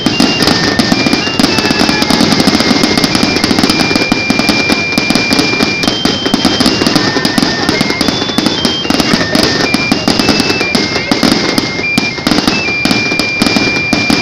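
Aerial fireworks display: shells bursting in a dense, continuous barrage of crackles and bangs. A thin, high melody of held notes sounds behind it.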